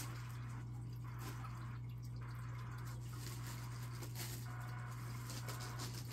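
Steady low hum with faint, irregular ticking over a soft background hiss.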